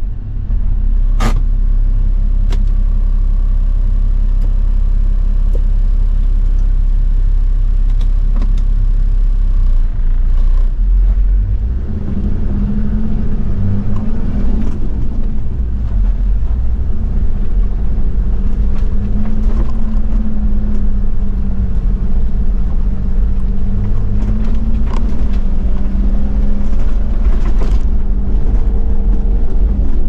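Toyota Land Cruiser 70's 1HZ straight-six diesel running as the truck drives on a dirt and gravel forest road, over a steady low rumble of tyres on the track, with occasional sharp ticks from stones. About twelve seconds in, the engine note comes up and wavers up and down with the throttle.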